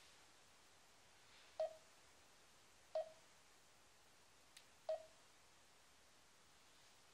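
Garmin Dezl 760 LMT sat-nav sounding short single-pitch key beeps as its touchscreen buttons are pressed: three in all, spaced one to two seconds apart, over near silence.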